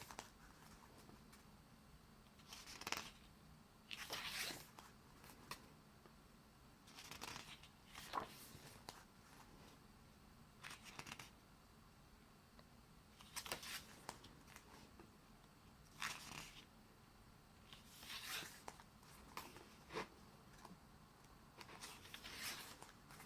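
Pages of an album photobook being turned one after another: short paper rustles about every one to three seconds, roughly a dozen in all.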